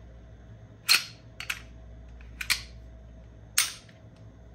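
Sharp metallic clicks and clacks of a Glock 19X pistol being field-stripped by hand: the slide and takedown parts snapping as the slide is worked off the frame. The loudest click comes about a second in, a pair follows quickly, another pair in the middle, and a last strong clack near the end.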